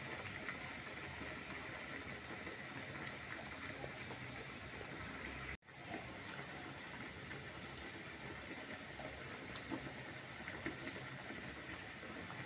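A pot of curry boiling on the stove: a steady hiss with faint bubbling ticks. The sound drops out completely for an instant a little before halfway.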